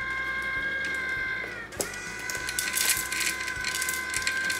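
Cats crunching dry kibble from a feeder bowl, a scatter of small crackly clicks, over a steady high hum.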